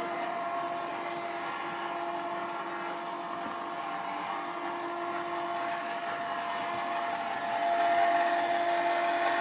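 Electric motor of a dog elevator running steadily with an even whine, getting a little louder about seven and a half seconds in.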